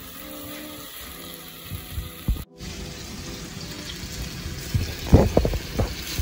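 Onions and tomatoes frying in a steel pot with a steady hiss; about five seconds in, a cluster of loud thuds and knocks as chunks of raw ground beef go into the hot pot.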